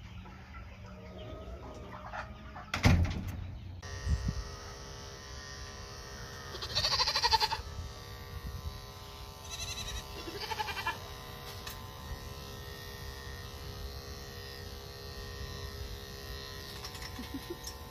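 Corded electric livestock clippers humming steadily while clipping a Nigerian dwarf doe's hindquarters. A goat bleats over the hum, loudest about 7 s in and again twice around 10 to 11 s. Near the start there is a single sharp knock.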